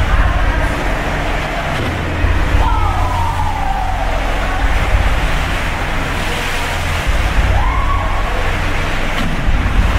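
Storm noise aboard a cruise ship in heavy seas: a loud, steady low rumble and rushing noise, with a whining tone that slides slowly down about two and a half seconds in and another that rises and falls near eight seconds.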